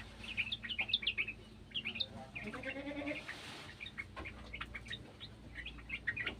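Yellow-vented bulbul chirping in quick, scattered notes throughout, with a lower, drawn-out bleat-like cry about midway.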